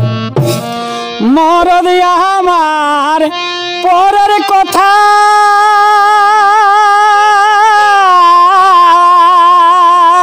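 Jhumur folk music: a few drum strokes in the first second, then a male singer holds long drawn-out vowels with a wavering vibrato over a soft harmonium.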